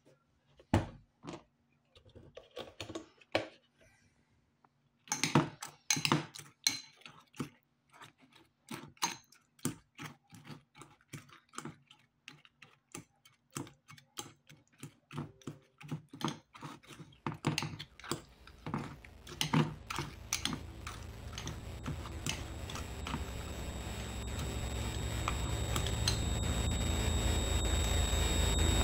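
Metal spoon clinking and scraping against a glass bowl while stirring yogurt with cookie pieces and oats, in quick irregular clicks that come thick and fast from about five seconds in. Through the second half a steady hiss with a high whine slowly grows louder underneath.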